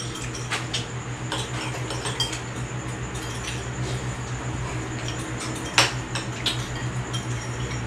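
Spoons clinking against ceramic soup bowls as several people eat noodle soup: scattered light clinks, with one louder clink about six seconds in, over a steady low hum.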